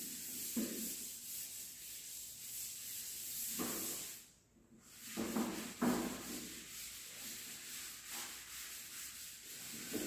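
Faint rubbing, scratching strokes of someone writing, a few short strokes standing out, with a brief break to near silence about halfway through.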